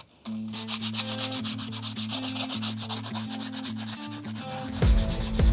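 Sanding block with sandpaper rubbed by hand back and forth over a coated machine-tool casting, in fast, even scratchy strokes, several a second. Background music comes in under it, with a low beat starting near the end.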